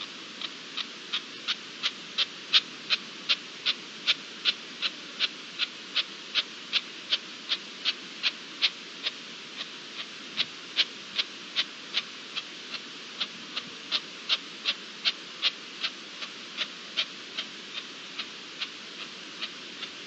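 An animal calling: a short, high note repeated steadily about three times a second, rising and falling a little in loudness, over a steady hiss.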